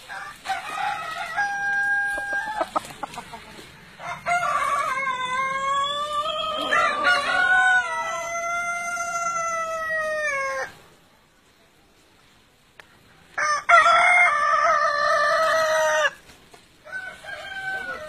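Roosters crowing: short calls at the start, then one very long drawn-out crow lasting about six and a half seconds that falls in pitch at the end. After a short pause comes a second crow of about two and a half seconds, and a brief call near the end.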